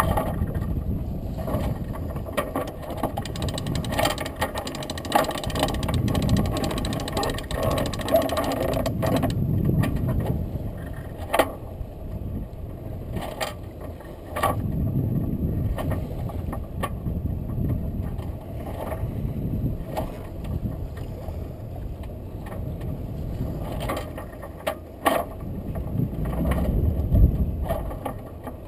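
Wind rushing over the microphone and water washing along a sailing yacht's hull under way, rising and falling, with scattered sharp clicks and knocks.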